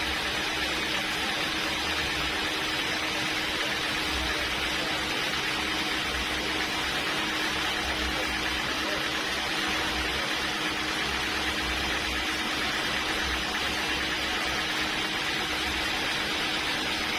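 Sawmill machinery running steadily: an even hiss with a constant hum underneath that does not change.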